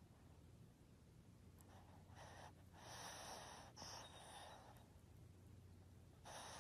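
Pug breathing noisily through its short nose: several faint, noisy breaths in a row, with a short pause before the last one.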